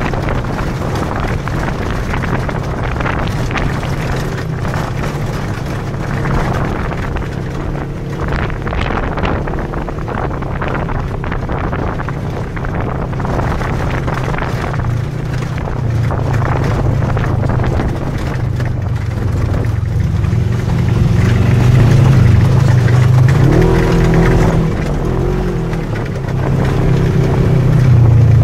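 Engine of an open side-by-side off-road vehicle running steadily as it drives along a dirt track, with wind noise on the microphone. The engine gets louder about halfway through, and its pitch rises and falls a few times near the end.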